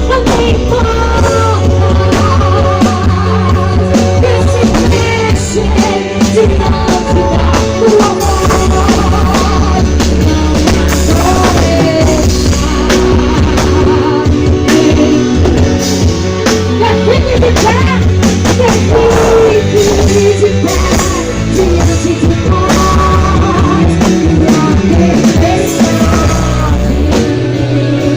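Live gospel worship band playing loud, steady music with drum kit, bass and guitar, with a wavering lead line over it.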